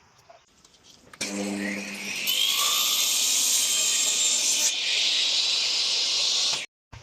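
Electric power tool spinning up with a rising whine, then running loud under load on wood, cutting off abruptly near the end.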